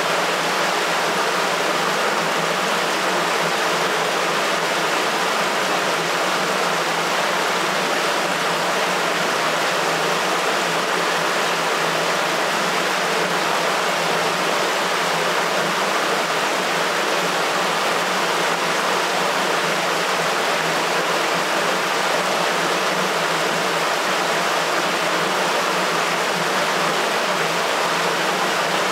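Water rushing through a sewer: a steady, unbroken rush with little deep rumble.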